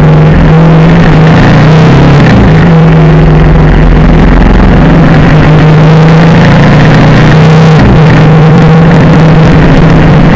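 Vehicle engine running steadily under way, heard from on board as a loud, even hum with road and wind noise, its pitch shifting briefly a couple of times.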